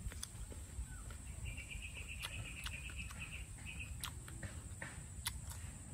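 Chewing of crunchy green mango, with scattered crisp clicks. A rapid high trill starts about a second and a half in and runs for about two seconds, over a steady high insect hum.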